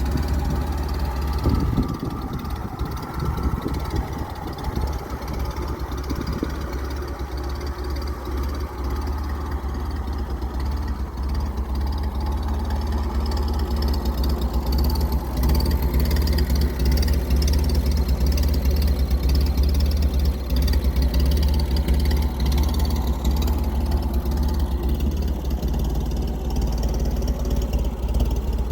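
A 1928 Chevrolet AB National truck's 171 ci four-cylinder engine running steadily at idle. It grows louder about halfway through.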